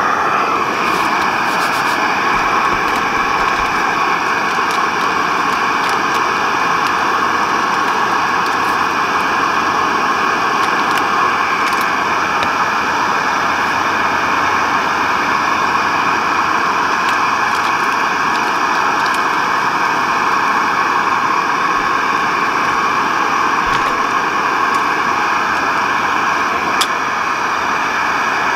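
Alpkit BruKit gas stove burning steadily at full flame on a gas canister, heating water for a brew: a loud, even roar.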